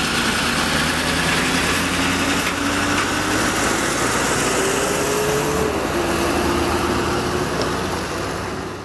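Flatbed tow truck engine pulling away. The engine note rises steadily for about five seconds, drops suddenly as the truck shifts up a gear, then holds steady. The sound fades out near the end.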